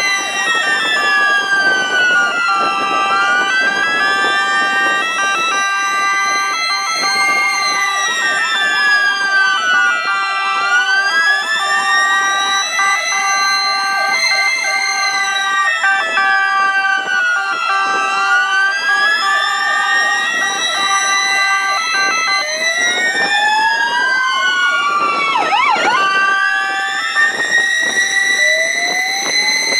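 Several ambulance sirens sounding together in a procession. One slow wail rises and falls about every seven and a half seconds over steady two-note siren tones. A further wailing siren joins around 22 seconds in, and another starts near the end.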